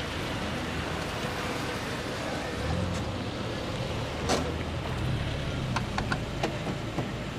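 Street traffic: a small car's engine running at low speed as it drives up and pulls in, over a steady traffic hiss. A sharp click comes about four seconds in, and a few lighter clicks come near the end.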